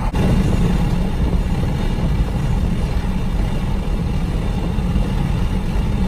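Open-top Jeep cruising at highway speed: a steady rush of wind and road noise, heaviest in the low end, with the engine droning underneath.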